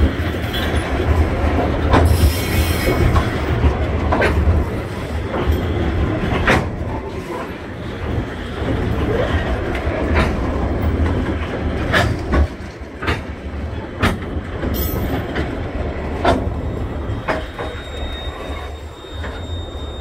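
Coal hopper wagons of a freight train rolling past: a steady low rumble with irregular sharp clicks of the wheels on the rails and a brief high wheel squeal about two seconds in. It grows quieter over the last few seconds as the end of the train moves away.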